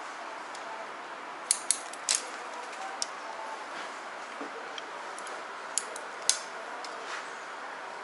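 Hair-cutting scissors snipping through hair in short, sharp cuts: a quick run of three about one and a half seconds in, a single snip at three seconds, and two more near six seconds.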